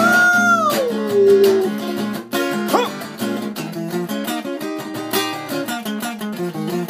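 Acoustic guitar playing, with a held sung note that slides down and fades out about a second and a half in, leaving the guitar on its own.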